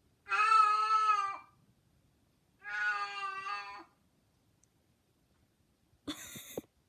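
Cat meowing: two long drawn-out meows, each about a second, then a short, harsher sound near the end.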